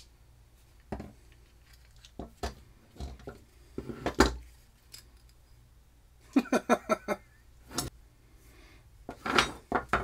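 Quick-release bar clamps and wooden handle pieces being handled on a wooden workbench: scattered clicks and clacks, with a quick run of about half a dozen clicks a little past six seconds in and a louder knock near the end.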